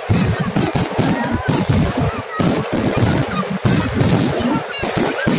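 Many fireworks and firecrackers bursting at once: a dense, unbroken run of overlapping bangs and crackles.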